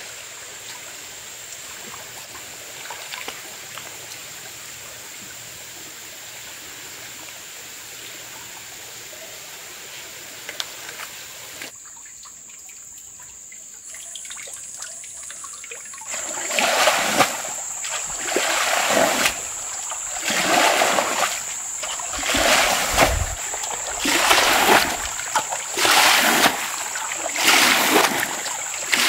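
A metal basin scooping and tipping muddy pond water, with repeated splashes and sloshes about once a second through the second half. Before that there is a steady faint outdoor background with a thin high steady tone.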